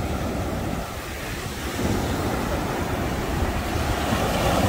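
Ocean surf breaking and washing up onto a sandy shore, with wind rumbling on the microphone. The wash grows louder about two seconds in.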